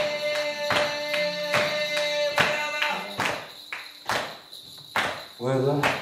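A man singing one long held note over a strummed acoustic guitar, with regular percussive beats. After about two and a half seconds the song winds down to a few last strums and beats, and a voice starts speaking near the end.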